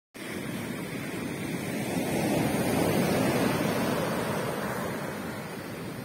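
Sea surf: waves breaking and washing up the beach in a steady rush, swelling to its loudest about two to three seconds in and then easing off.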